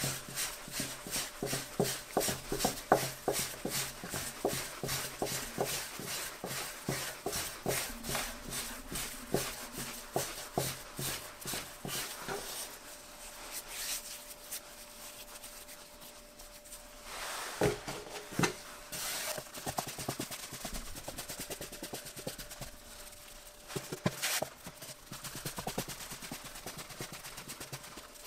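Soft bread dough being rounded into balls by hand on a floured wooden board. It makes a quick, regular patting and rubbing for the first dozen seconds, then quieter rubbing with a few separate bumps.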